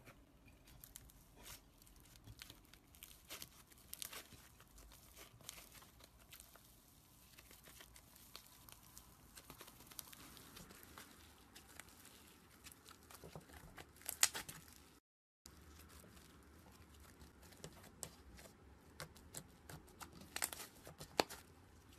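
Hands squishing, stretching and tearing thick slime: a steady run of faint crackles, small pops and sticky tearing sounds. The crackling is loudest about 14 seconds in and again near 21 seconds, with a brief drop-out about 15 seconds in.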